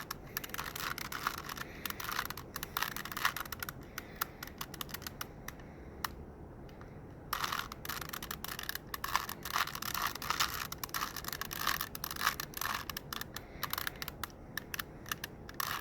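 Rubik's cube being turned by hand: quick runs of plastic clicking and scraping as the layers rotate, with a pause of about two seconds midway.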